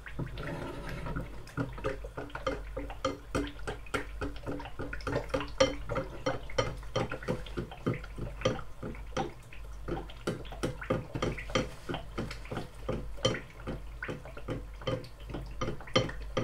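Eggs frying in oil in a pan, crackling and spitting with quick, irregular pops.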